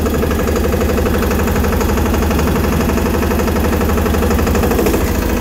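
Massey Ferguson 5118's single-cylinder 825 cc diesel engine running steadily with a fast, even firing pulse while the mini tractor drives in second gear.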